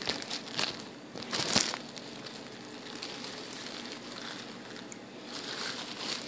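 Plastic oven bag crinkling and rustling as a hand works inside it, with a few sharper crackles in the first two seconds, the loudest about one and a half seconds in.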